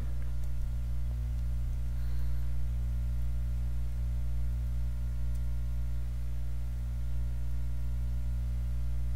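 Steady electrical mains hum, a low buzz with a stack of overtones, unchanging throughout.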